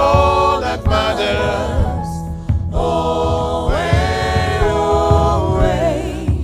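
Gospel vocal group singing a song in close harmony, several voices moving together over a low accompaniment, with a brief break between phrases about two seconds in.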